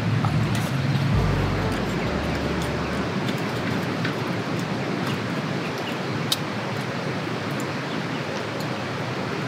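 Steady rushing outdoor background noise with a few faint sharp clicks, one a little louder about six seconds in. Background music fades out over the first three seconds.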